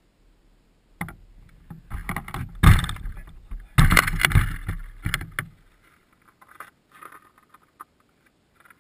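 Close handling noise from a camera being moved and set down: a run of irregular knocks, scrapes and rubbing bumps, the loudest about three and four seconds in. After about six seconds it goes almost quiet, with a few faint ticks.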